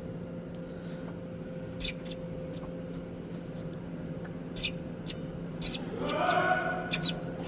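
The spring-loaded pivot of a DAF truck's auxiliary belt tensioner squeaks as it is worked by hand: short, high squeaks at irregular spacing, with a longer squeal about six seconds in. The tensioner's spring mechanism is apparently the source of the engine-bay squeal, while its roller spins fine.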